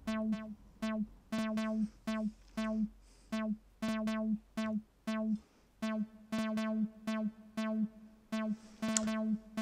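Synthstrom Deluge playing a sequenced synth pattern: short notes with sharp attacks repeating on one pitch, about two a second, some falling in quick pairs.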